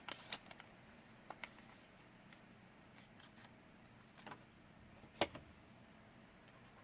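Faint, scattered light clicks and taps from paper and craft supplies being handled on a work table, the loudest about five seconds in.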